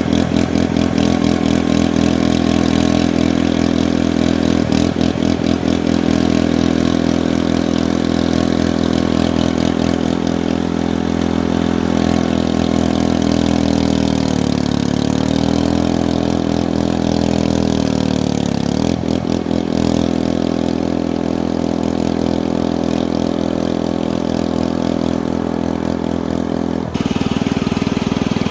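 Steady engine-like running sound whose pitch dips and comes back up about halfway through, and changes again near the end.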